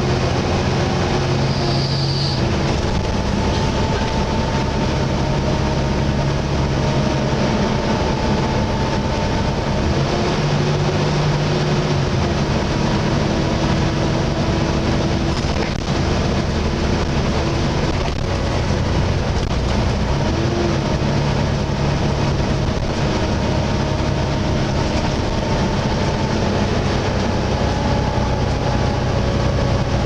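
Volvo B7TL double-decker bus on the move, heard from the upper deck: the engine drone steps up and down a few times under steady whining tones from its cooling fan, a loud vacuum-cleaner-like "mad hoover" whine, over road noise.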